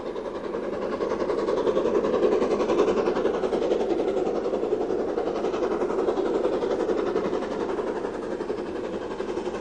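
BR Standard Class 4 2-6-0 steam locomotive working a train, a steady running sound that swells about two seconds in and eases slightly near the end.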